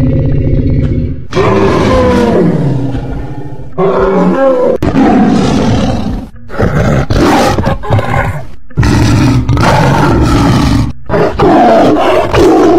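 Big-cat roars and snarls given as the voice of Smilodon, the sabre-toothed cat: about five loud roars in a row with short breaks between them. They are preceded by about a second of a low, steady droning call given for a woolly mammoth, which stops abruptly.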